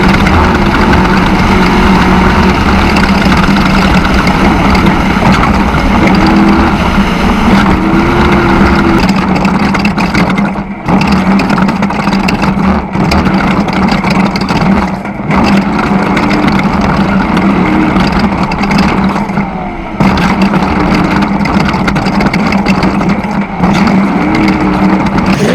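Off-road race vehicle's engine running hard at steady high revs, with short swings in pitch and a few brief dips in level.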